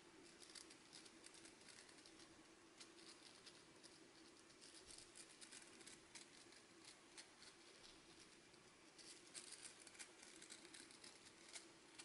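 Stiff plastic bristles of a scrubbing brush scratching and crackling against a paperback book cover, faint, in irregular bursts of fine ticks.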